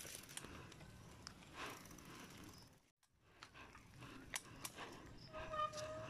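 Faint clicks and light rattles of a bicycle being ridden. The sound cuts out completely for a moment about halfway, and a short steady high tone sounds near the end.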